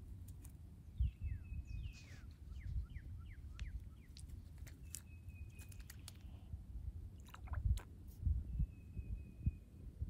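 Birds calling with thin held whistles and quick falling chirps, over a low, irregular rumble of wind on the microphone and scattered sharp clicks.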